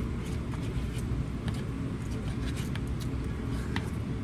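Faint eating sounds and small clicks as the last of the pasta is taken from a paper takeout bowl tipped up to the mouth, over a steady low background hum.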